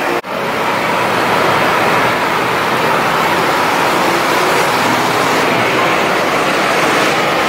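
Steady city street traffic noise: buses, cars and motorbikes running past on the road.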